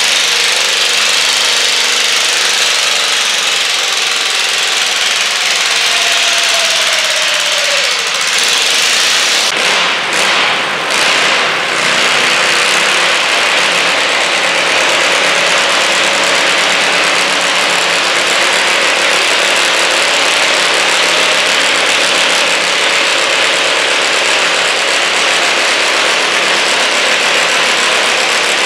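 Garden tractor engines running loudly and steadily during a stoneboat pull, one engine's pitch sliding down about six seconds in. The noise dips briefly near the middle, then carries on steadily.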